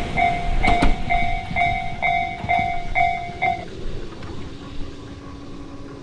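Japanese railway level-crossing alarm ringing its 'kan-kan' bell, about two strikes a second, over the fading rumble and a few wheel clacks of the departing Tobu train. The bell stops a little past halfway as the crossing clears, leaving it quieter.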